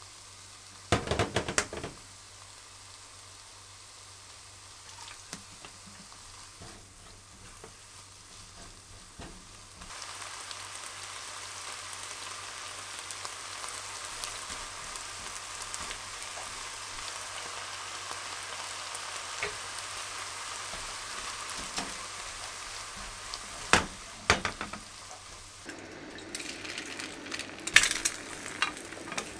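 Food sizzling in a frying pan, setting in about ten seconds in and carrying on steadily. A short clatter of knocks comes about a second in, and more sharp knocks and clatters come near the end.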